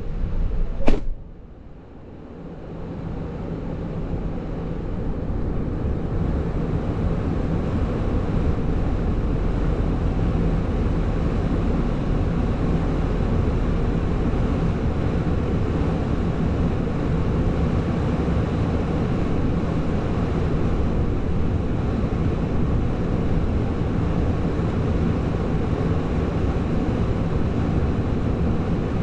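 A single sharp knock about a second in, then a semi truck's diesel engine idling steadily, a low drone under a haze of wind noise.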